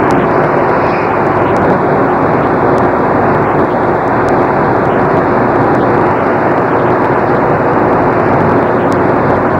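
Loud, steady rushing noise with a faint steady hum under it, unchanging throughout.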